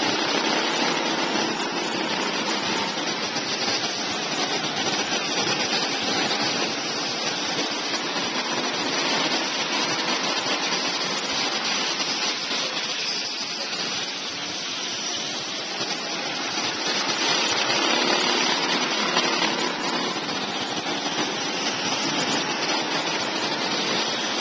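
Go-kart engines running around an indoor track, a continuous engine drone that swells and eases in loudness as the karts come round and move away.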